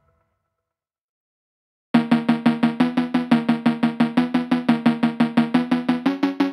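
About two seconds of dead silence, then background music cuts in: a single pitched note repeated quickly and evenly, about seven times a second, stepping up a little in pitch near the end.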